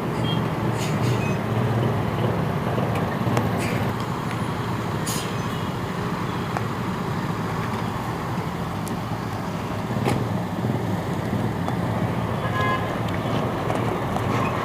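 Steady roadside traffic noise from vehicle engines, with a couple of brief sharp clicks about five and ten seconds in.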